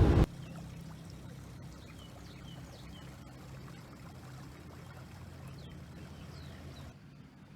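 Water trickling and lapping quietly, over a faint steady low hum, with a few short high chirps.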